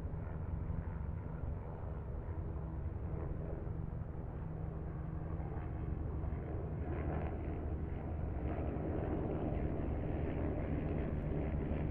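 Electric standing fan running close by: a steady motor hum with the even rush of air from its blades.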